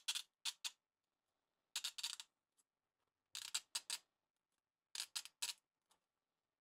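Coils of a freshly 3D-printed plastic slinky being pulled apart by hand, the printed layers breaking free of one another with crisp crackling snaps. The snaps come in about four short groups, a second or more apart, one for each tug.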